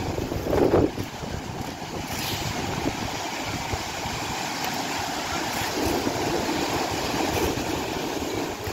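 Small surf breaking and washing up a sandy beach: a steady rushing noise, with a brief louder rush about half a second in.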